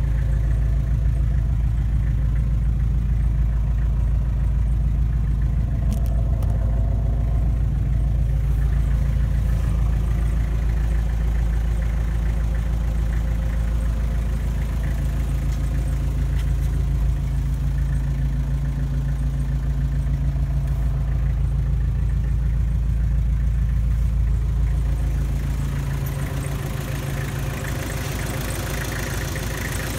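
Kubota M9000's four-cylinder diesel engine running steadily, heard from inside the tractor's cab. About 26 seconds in, the low hum drops and the sound turns brighter and more open.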